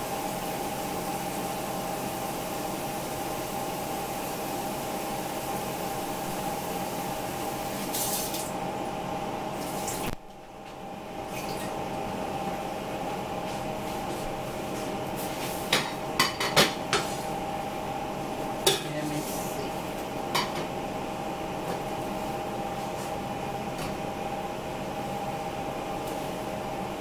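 Pots and utensils being handled in a kitchen: a quick run of metal clanks about two-thirds of the way through and a couple more soon after, over a steady background hum.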